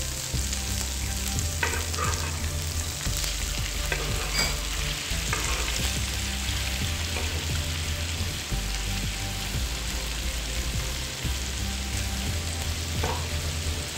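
Butter and oil sizzling steadily in a frying pan as raw chicken strips are added and stirred about with a spatula, with scattered clicks and scrapes from the spatula against the pan.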